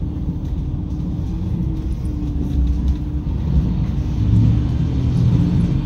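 Setsugekka ET122-1000 series diesel railcar running, heard from inside the passenger cabin: a steady low rumble of engine and wheels on rail with a held hum, growing a little louder about halfway through.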